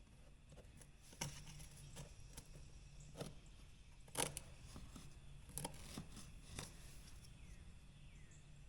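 Faint scattered clicks and taps, about six over several seconds with the sharpest a little past four seconds in, from tools and materials being handled, over a low steady hum.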